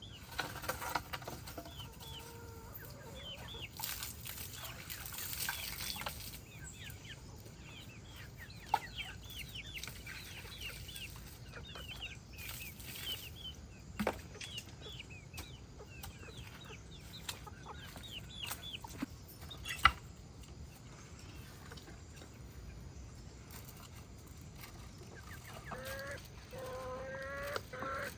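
Chickens clucking, with many short, high peeps throughout and a couple of sharp knocks. A longer, louder call comes near the end.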